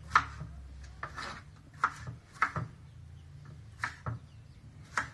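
Kitchen knife cutting tomatoes into large chunks on a plastic cutting board: about eight irregular knocks of the blade on the board.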